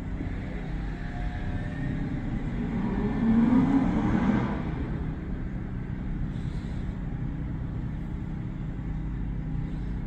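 Steady low mechanical hum, swelling for a second or so about three to four seconds in with a faint rising whine, then settling back.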